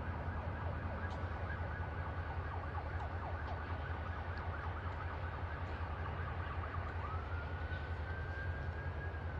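Freight car wheels squealing against the rails as a cut of covered hoppers is shoved slowly away: a run of short, uneven squeals at first, then one long high squeal that rises about seven seconds in and holds, over a steady low rumble.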